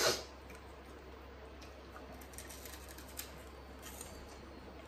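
A brief crackle of crisps as a hand grabs them from a glass bowl, then faint scattered crunching of chewing.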